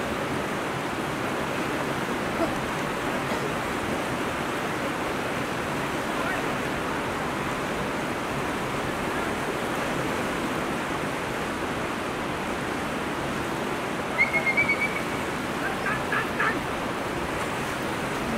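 Fast-flowing river water running over a stony bed, a steady wash of water noise. About fourteen seconds in comes a short high-pitched call, then a few brief sharper sounds.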